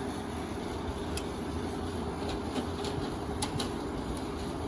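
Small 5,000 BTU window air conditioner running: steady compressor hum and propeller-fan airflow, with a few short clicks.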